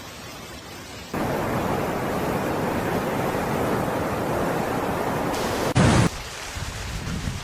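Rushing floodwater: a steady rush of noise that jumps abruptly louder about a second in, with a short louder burst near six seconds before dropping back to a quieter water rush.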